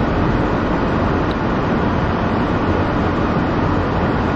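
Steady running noise inside the cabin of a driverless rubber-tyred, cable-hauled airport people-mover train.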